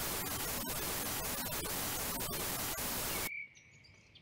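TV static hiss: a loud, even rush of noise with faint crackles, which cuts off suddenly about three seconds in, leaving only a faint background.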